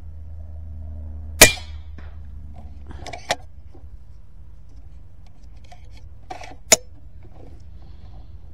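Skout Epoch PCP air rifle firing a slug: one sharp, loud report about a second and a half in, followed by two fainter sharp clicks about two and five seconds later.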